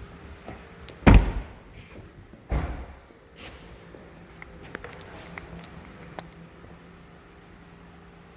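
Two heavy thumps about a second and a half apart, then a scatter of light clicks and key jingling.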